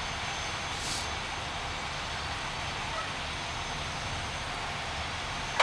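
Steady engine-like rumble with a hiss over it, unbroken throughout, and a short click at the very end.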